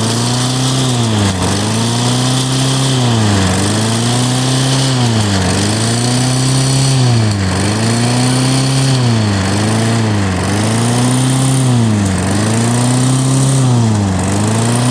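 Briggs & Stratton Classic lawn mower engine running and surging, its speed rising and dropping in a regular cycle about every two seconds. The surging comes from the governor's idle spring having no tension, so the engine hunts up and down.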